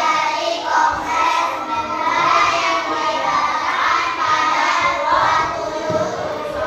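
Children singing.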